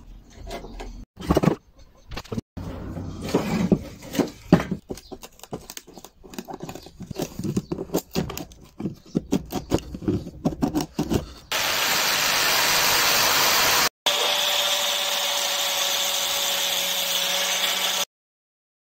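A wood chisel cutting into a wooden block in a series of short scraping strokes and knocks. Then a power sander runs steadily with the wood pressed against it, cutting off suddenly near the end.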